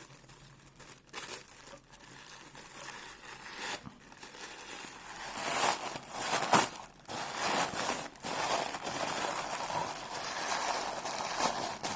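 Wrapping being unwrapped by hand: crinkling and rustling, faint at first and louder from about halfway through, with a sharp crackle near the middle.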